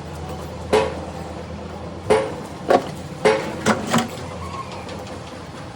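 Six sharp knocks at uneven intervals over about three seconds, each with a short ring, over a steady low hum.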